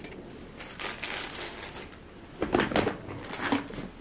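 Rustling and handling noise as items are rummaged out of a shopping bag, with a run of louder knocks about two and a half seconds in.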